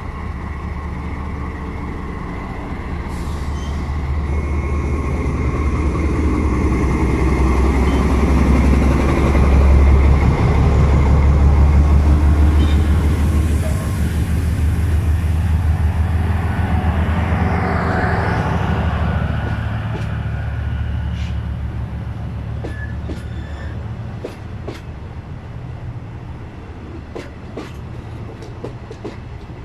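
Diesel locomotive pulling a passenger train past at close range: a low engine drone that builds to its loudest about ten seconds in, then eases off as the coaches roll by. Through the second half, the wheels click sharply over the rail joints.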